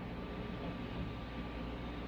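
Hairbrush drawn through hair close to the microphone: a continuous soft, scratchy rustle at an even level.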